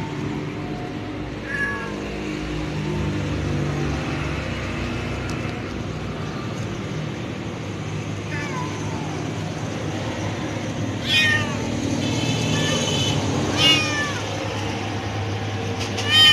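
Domestic cat meowing, about five separate meows spread out, the later ones loudest, over a steady low background hum. The meows are those of a hungry cat calling for food.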